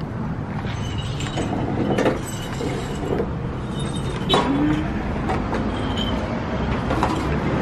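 Steady rumble of street traffic, with a few light knocks.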